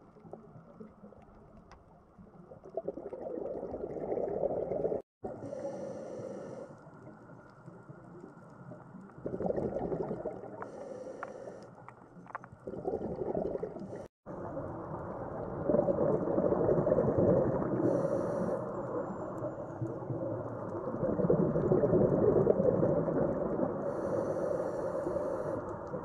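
Scuba diver's regulator breathing heard underwater: exhaled bubbles rumble in long swells lasting a few seconds each, alternating with short hissing inhalations, about four of them. The sound cuts out for an instant twice, at edits.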